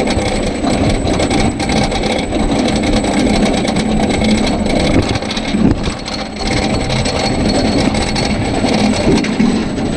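Railblazer single-rail roller coaster train climbing its lift hill: a steady mechanical rattle with fast, continuous clicking.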